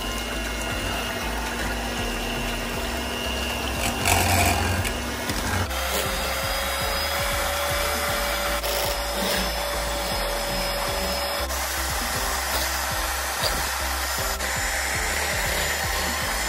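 Philips electric hand mixer running, its beaters whisking eggs in a glass bowl until they are pale and foamy. A steady motor whine changes pitch about five and a half seconds in and again near eleven seconds.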